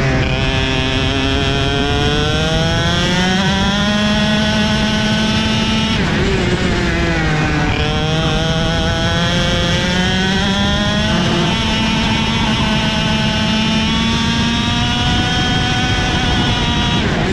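A 125cc two-stroke KZ shifter kart engine at racing speed, heard onboard. The engine note climbs hard, drops sharply about six seconds in as the throttle comes off for a corner, climbs again with a brief step around eleven seconds as it changes gear, then falls again near the end.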